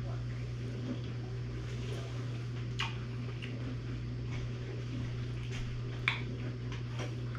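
A metal fork clinking against a bowl twice while eating, once about three seconds in and more sharply about six seconds in, over a steady low hum.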